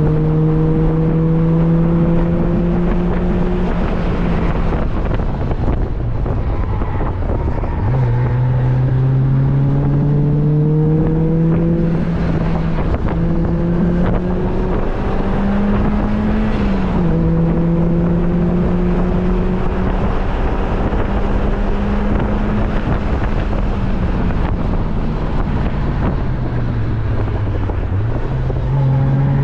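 Four-cylinder engine of a Mazda Miata driven hard on track, heard from the open cockpit with wind rush over it. The engine note climbs steadily under acceleration and drops sharply at an upshift about 17 seconds in. It sags under braking and jumps back up with downshifts around 8 seconds in and again near the end.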